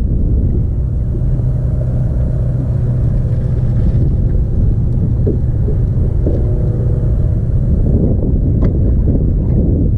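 Steady low engine rumble with a constant hum throughout.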